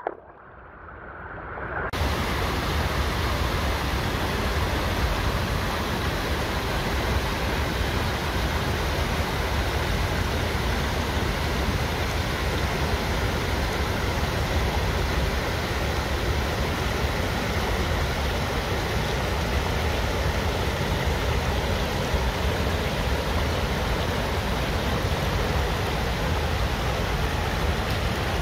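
Steady rushing water, an even hiss like a stream pouring over rocks, fading in over the first two seconds and then holding unchanged.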